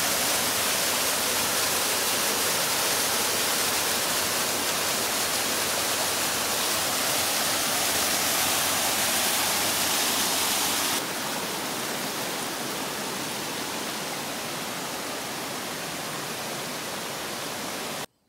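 Rushing water of a mountain-brook waterfall cascading over rock slabs: a steady, dense rush that drops somewhat quieter about eleven seconds in and cuts off suddenly near the end.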